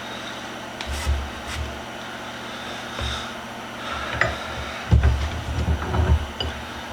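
Scattered knocks, clunks and rubbing of hand tools and small metal vise parts being handled on a workbench, busiest in the last two seconds.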